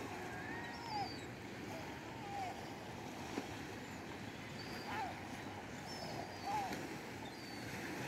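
Steady wash of gentle surf on a shingle beach, with a few short bird calls that glide in pitch every second or two.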